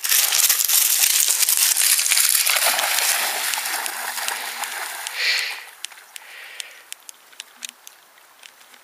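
Pebbles crunching underfoot and a dog splashing hard through shallow river water. After about five and a half seconds it drops to soft splashing and scattered small clicks as the dog swims.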